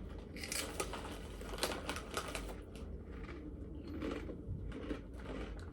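Crunching and chewing of puffed brown rice chips: irregular crisp crackles, several a second.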